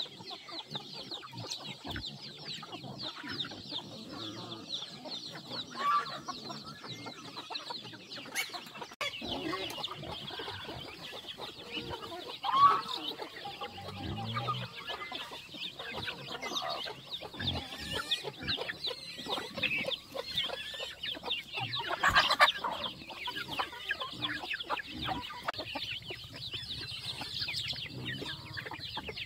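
A flock of chickens clucking continuously while they peck at scattered grain. There is a couple of louder sudden sounds, one about a third of the way in and one about three quarters through.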